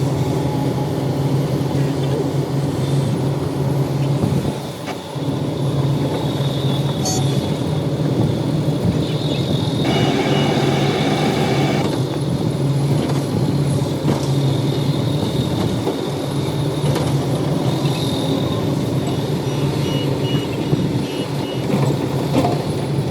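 Heavy diesel machinery running steadily under load, a continuous low engine drone. It dips briefly about five seconds in, and a harsher, brighter stretch with a high whine comes from about ten to twelve seconds in.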